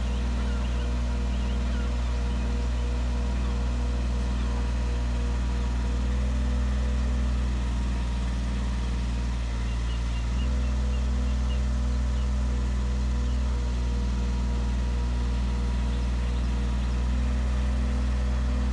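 Heavy truck's diesel engine idling steadily, a low, even hum that grows a little louder about ten seconds in.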